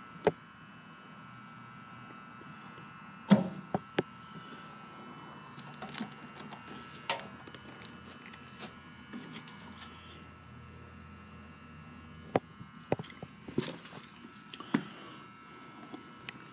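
Handling noise: about a dozen scattered light clicks and knocks, the sharpest about three and a half seconds in and a cluster after twelve seconds, over a faint steady hum with a few thin steady tones.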